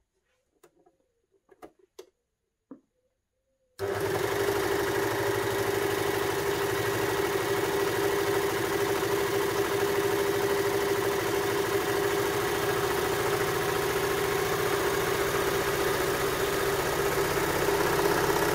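Baby Lock Victory overlocker (serger) running steadily as it sews a rolled hem, starting abruptly about four seconds in after a few faint clicks of the fabric being handled.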